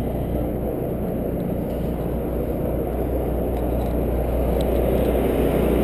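Steady low rumble of a sportfishing boat's engine running, growing a little louder near the end.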